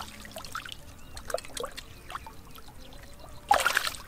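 Hands sloshing and groping for fish in shallow muddy water, with small drips and splashes throughout. A louder splash about three and a half seconds in.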